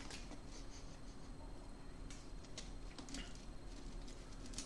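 Faint, scattered clicks and light rustles of a Pringles can being handled and chips being taken out of it.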